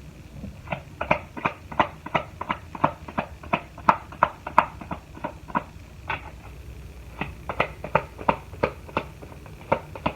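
Tarot cards being shuffled by hand: a rhythmic run of soft card slaps and taps, about three a second, with a brief pause about six seconds in before the taps resume.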